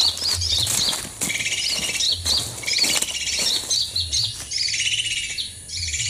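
Small songbirds twittering in quick, repeated high-pitched phrases, with brief rustling and scraping noises in the first half.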